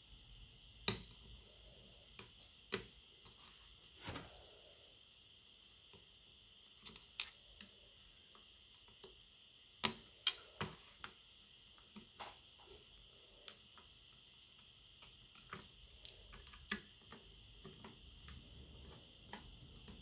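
Small metal repair tools, tweezers and a screwdriver, clicking and tapping irregularly against a tablet's frame, mainboard and screws during disassembly, over a faint steady high hum.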